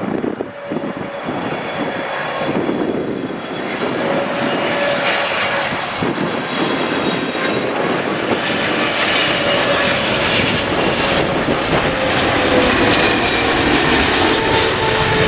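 Boeing 777 twin-engine jet airliner on final approach with gear down, its engines making a dense rumble with steady whining tones. The sound grows louder as the plane nears, and the whine slides slightly lower in pitch near the end.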